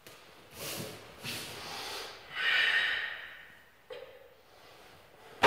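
Forceful breaths of a karateka performing a Goju-ryu kata, several in a row, the loudest about two and a half seconds in, with a short sharp sound near the end.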